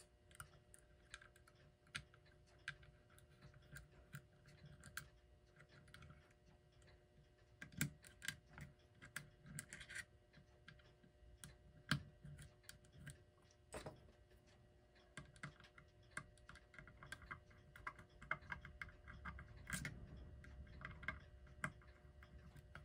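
Faint, irregular small clicks and taps of metal parts being handled as a small spring clamp is fitted over the rotor of an electric clock movement.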